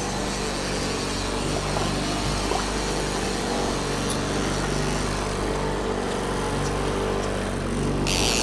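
Fishing boat's engine running with a low steady hum, under wind and water noise.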